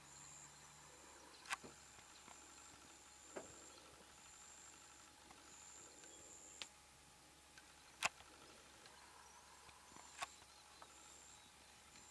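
Quiet ambience: a high-pitched insect call that breaks off about every second, with five short sharp clicks scattered through, the loudest about eight seconds in.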